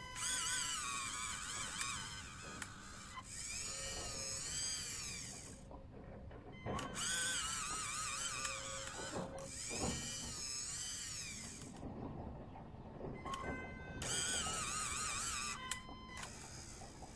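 Electric motors of an RC excavator whining in repeated bursts of a few seconds each, the pitch wavering up and down as the arm works under a heavy load of about 5 kg of water.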